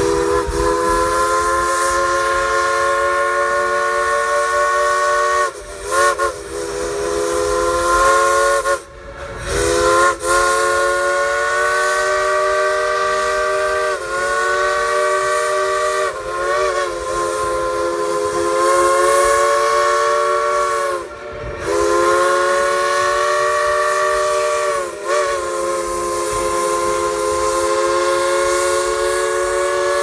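A World War II-era steam locomotive's whistle blowing a series of long blasts, several notes sounding together as a chord. Each blast is held for several seconds, with brief breaks between them.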